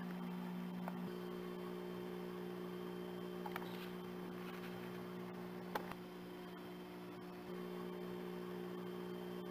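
Steady, low electrical mains hum with a few faint clicks.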